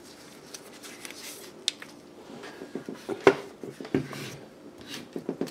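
Handling noise on a desk: light scattered knocks and clicks as a portable power bank and a power-tool battery charger are set down and picked up, with one sharper knock about three seconds in.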